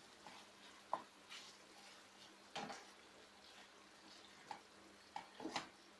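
Wooden spoon stirring mustard paste into chicken in a frying pan: faint, scattered scrapes and knocks of the spoon against the pan, the sharpest about a second in and a small cluster near the end.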